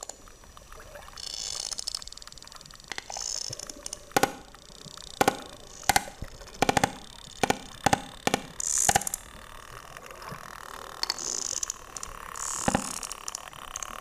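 Sperm whale clicks heard underwater: a series of sharp, loud clicks, about two a second through the middle stretch, over a steady underwater hiss, with short high buzzing bursts in between.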